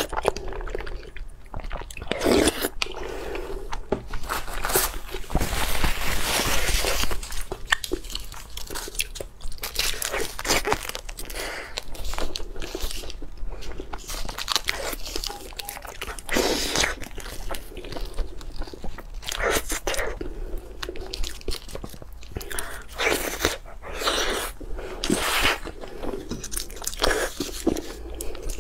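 A person eating crunchy food: repeated, irregular crunching bites and chewing.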